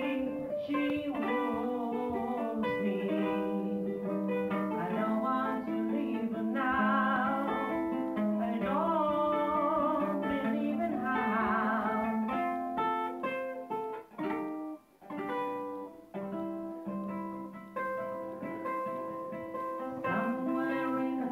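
A man singing with a ukulele strummed and plucked as accompaniment. The music pauses briefly twice about two-thirds of the way through.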